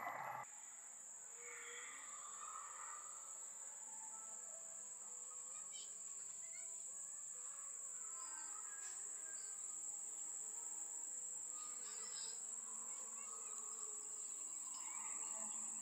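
Insects droning in one steady, high-pitched tone, starting abruptly about half a second in.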